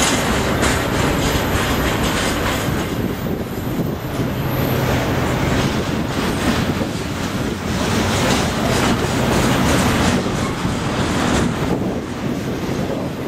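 Double-stack intermodal well cars of a BNSF freight train rolling past: a steady rumble and hiss of steel wheels on the rails, with repeated wheel clicks.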